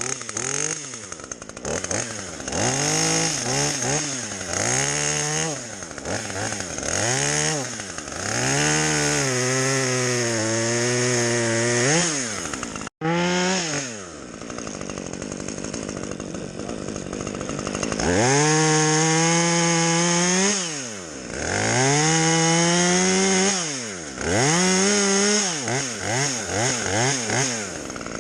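Two-stroke chainsaw running, revved up and down over and over, with a couple of longer stretches held at high revs. The sound cuts out abruptly for an instant about halfway through.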